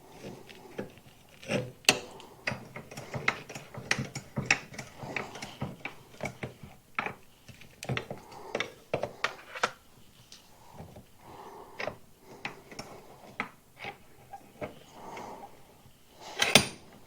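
Hand tools and metal parts clicking and knocking on a mini bike during reassembly: a run of irregular, quick clicks like a ratchet wrench working, then sparser clicks and one loud clank near the end.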